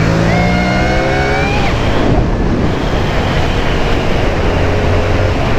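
Yamaha sport bike's engine revving up through the gear for about two seconds, then easing off and running steadily at a lower pitch, heard from the rider's seat with wind rushing past.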